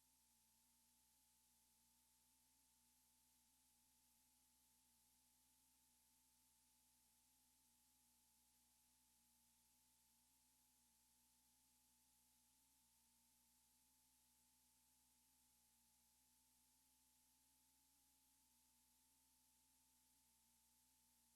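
Near silence: only a faint hiss and a faint steady hum in the recording.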